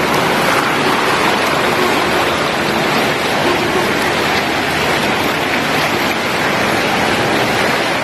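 Spa whirlpool's water jets churning and bubbling the pool water, a steady rushing noise.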